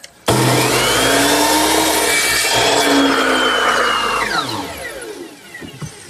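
Power miter saw starting up and crosscutting the end of a walnut board, a loud whine with cutting noise. About four seconds in, the motor is released and its whine falls away as the blade coasts to a stop.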